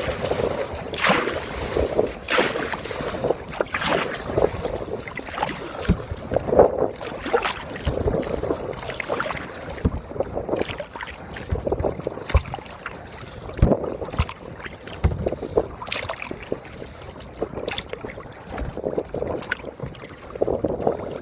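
Kayak paddle strokes: the blades splash and dip into the river in an irregular rhythm, about one or two strokes a second, with water sloshing against the hull between them.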